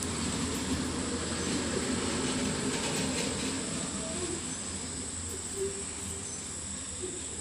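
Faint rubbing and handling as fingers smear ghee around the inside of an aluminium pot, over a steady background hum with a thin high whine.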